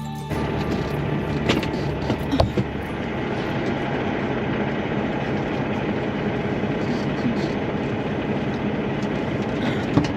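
Truck engine idling steadily under a haze of outdoor noise, with a few short knocks about a second and a half in, two and a half seconds in, and near the end.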